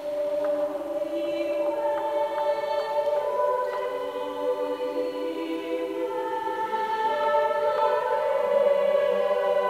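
Mixed choir singing held, layered chords. The voices come in together at the start and the chords change slowly.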